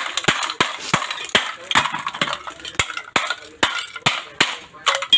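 Repeated hammer strikes, about three a second, breaking up cement, with crunching and clinking of broken pieces between blows.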